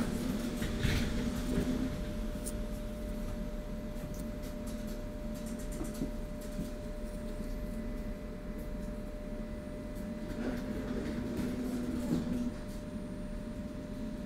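Tram interior noise: a steady electrical hum with a low rumble, and a deeper drone that swells twice and cuts off shortly before the end. Light ticks and clicks are scattered throughout.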